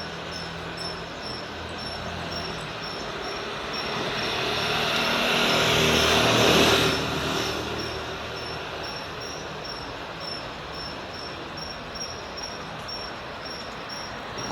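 A vehicle passes by. Its noise builds for a few seconds to a peak about halfway through, then falls away fairly quickly. Under it runs a steady, evenly pulsing high chirp of insects.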